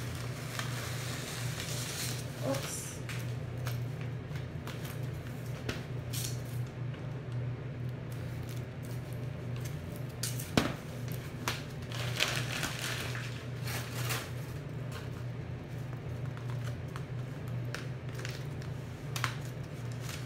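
Bathroom exhaust fan humming steadily under the rustle and tapping of styrofoam sheets and a crinkly plastic sheet being handled, with a sharp knock about halfway through.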